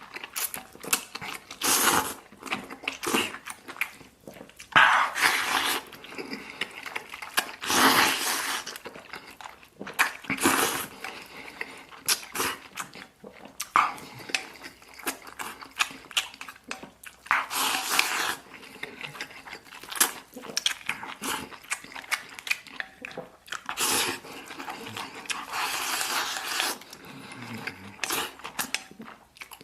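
Close-miked eating: a man chewing and slurping big mouthfuls of braised beef rice with glass noodles, with many sharp clicks between mouthfuls.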